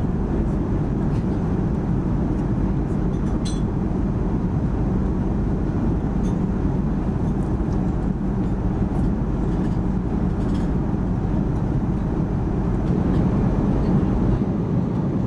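Steady cabin noise of an Airbus A330-300 airliner in flight: an even low rumble of engines and rushing air, with a few faint ticks.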